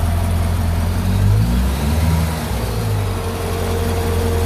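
2012 Corvette Grand Sport's 6.2 L LS3 V8 running at idle, freshly flushed and refilled with synthetic oil. The engine note briefly rises and falls about a second in, and a faint steady whine joins near the end.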